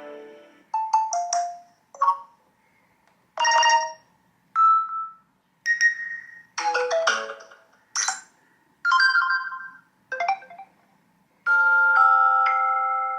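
Samsung Galaxy S24 Ultra's built-in One UI 8.5 alert tones playing one after another: about ten short chimes, each with a different pitch and timbre, with brief silences between them. Near the end comes a longer held chord.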